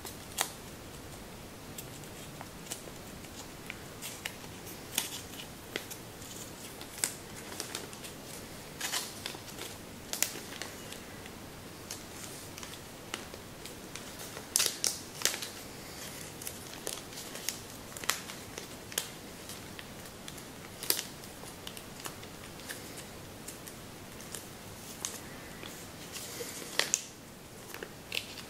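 Thin Kami origami paper crinkling and rustling as hands press and shape a folded paper model, with irregular short crackles every second or so, a brief cluster about fifteen seconds in and another near the end.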